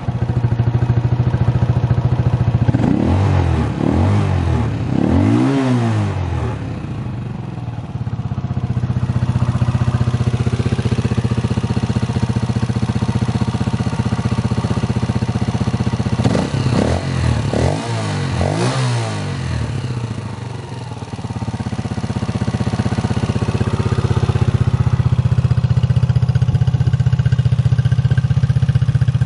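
Barton TZ 125 motorcycle's 125 cc air-cooled single-cylinder engine running just after starting. It idles steadily and is revved in three short throttle blips a few seconds in, then three more a little past the middle.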